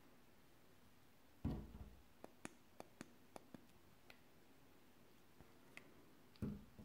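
Handling noise from a small handheld ballistic computer with a scope-ring mount: a soft thump, then a quick run of about seven faint sharp clicks, and another thump near the end.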